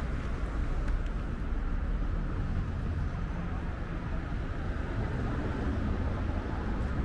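City street traffic: a steady rumble of passing cars.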